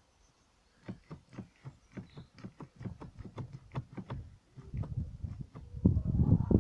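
A quick run of light clicks, about five a second, from a Volkswagen Touareg's passenger-side windscreen wiper arm being worked by hand at its pivot. Near the end a loud low rumble comes in.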